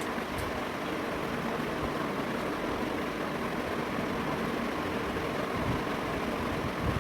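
Steady rushing background noise at an even level, with no clear rhythm or pitch.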